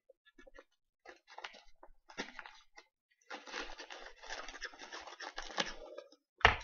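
Scissors cutting open a paper mailer envelope, with paper crinkling. Short snips at first, then a longer stretch of steady cutting and crinkling about three seconds in. A single sharp click comes near the end.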